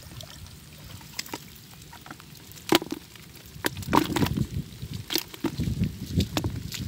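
Water dripping and splashing into a plastic bucket as a fish is shaken out of a wet bamboo box trap. From about three seconds in come a run of sharp knocks and splashes as the fish drops and thrashes in the bucket and the trap is knocked against it.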